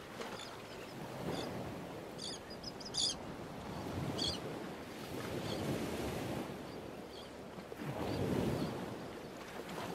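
Ocean surf washing in, swelling and ebbing every few seconds, with a few short, high bird chirps between about two and four and a half seconds in.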